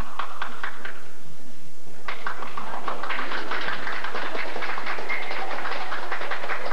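Spectators clapping their hands, many quick claps in a gymnasium. The clapping thins out about a second in, then picks up again about two seconds in and carries on densely.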